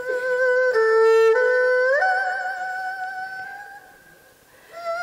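Yue opera instrumental accompaniment: one melodic line of long held notes with vibrato. It slides up to a higher note about two seconds in, fades out near four seconds, and comes back just before the end.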